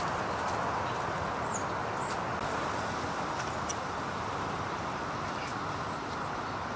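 Steady outdoor background rush with no clear pitch or rhythm, with a few faint, short, high chirps.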